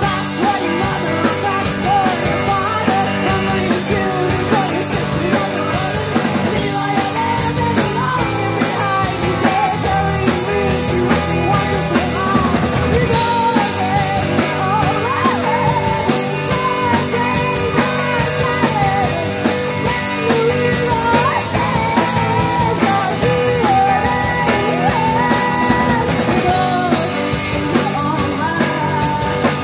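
Live rock band playing through a PA: a female lead singer over electric guitars and a drum kit, continuous and loud.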